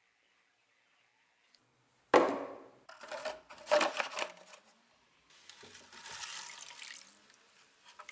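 Old metal blowtorch parts set down with a loud clunk in a plastic tub and clattered into place, then liquid pouring into the tub over them for about two seconds.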